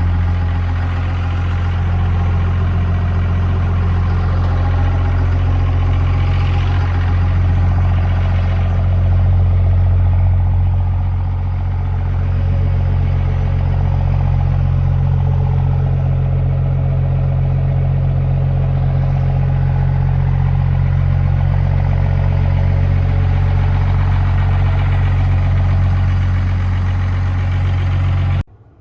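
5.9-litre 24-valve Cummins inline-six diesel idling steadily, freshly started after a long no-start that was traced to a bad ground wire on the crank sensor. The sound cuts off suddenly near the end.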